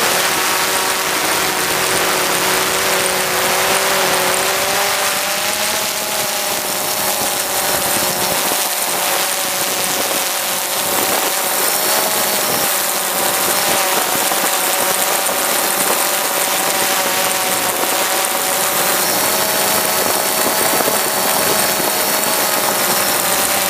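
DJI Phantom 4 quadcopter's motors and propellers running close to the camera's microphone: a loud, steady buzzing whir made of several held pitches that drift slightly up and down, over a dense hiss.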